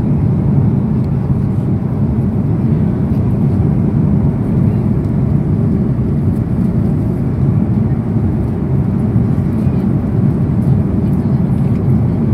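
Steady, low cabin noise of an Airbus A330-300 airliner in flight, engine and airflow noise heard inside the cabin at a window seat.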